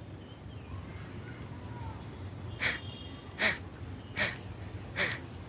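Kapalbhati breathing through one nostril: short, forceful puffs of air out through the left nostril, the right held closed. Four sharp puffs a little under a second apart, starting about halfway in.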